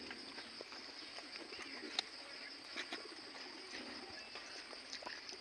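Faint bird cooing in the background, with a few soft clicks.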